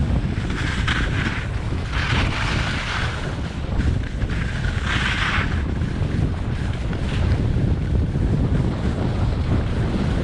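Wind buffeting the microphone of a skier moving fast downhill, with the hiss of skis scraping over groomed snow, loudest on turns about two seconds in and again around five seconds in.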